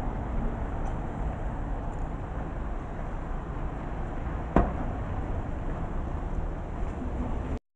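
Street traffic ambience: a steady low rumble of city traffic, with one sharp click about four and a half seconds in. The sound cuts off abruptly near the end.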